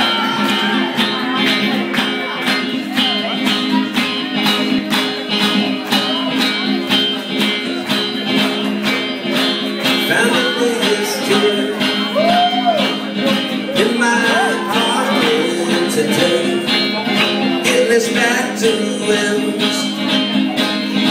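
Live band playing country-gothic music on upright bass, banjo, electric guitar and drums, with a steady beat.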